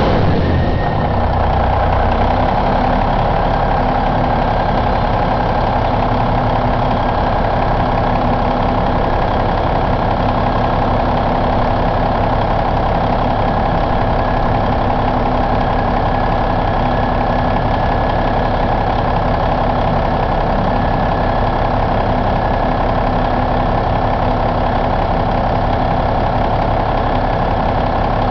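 Turbocharged Cummins N14 CELECT inline-six diesel engine idling. Its pitch eases down slightly in the first couple of seconds, then it runs steadily.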